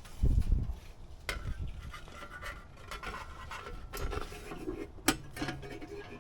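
Parts being handled on a work surface: a dull thump about half a second in, then rubbing and scraping with a few sharp clicks.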